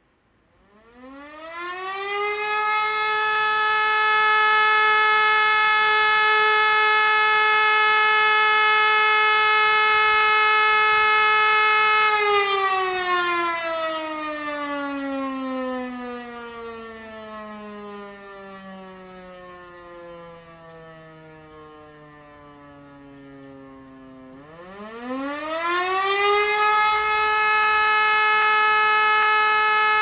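E57 electromechanical siren sounding the German 'Feueralarm' signal. It winds up to a steady tone within a few seconds and holds it, is cut off about twelve seconds in and winds down with falling pitch, then starts again and rises back to the steady tone near the end. The steady tone interrupted twice is the call-out for the fire brigade.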